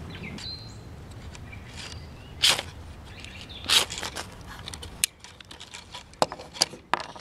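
Two loud, short scrapes of a striker along a ferrocerium rod, about a second apart, throwing sparks to light char cloth, followed by a few soft clicks and taps.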